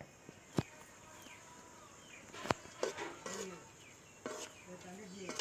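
Faint outdoor background of small chirping calls, with a few sharp clicks about half a second, two and a half, and nearly three seconds in.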